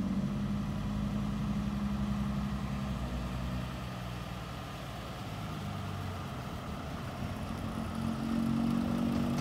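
Isuzu dump truck's diesel engine running as the truck drives up. It eases off about a third of the way through, then builds again and is loudest near the end as the truck pulls in close.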